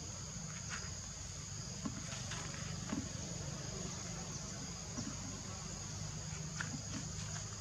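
Steady high-pitched insect chorus droning without a break, over a low steady rumble, with a few soft knocks scattered through.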